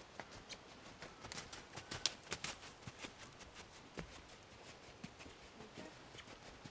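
Hoofbeats of an Arabian mare cantering on a lunge circle over a sand-and-gravel arena: an irregular run of sharp clicks and dull knocks, busiest and loudest about two seconds in.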